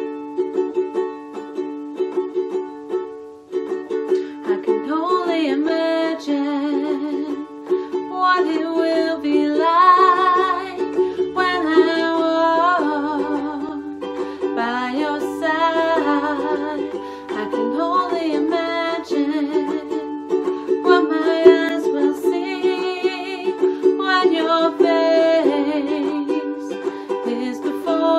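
Ukulele strummed in a steady chord pattern, with a woman's voice singing over it in phrases from about five seconds in.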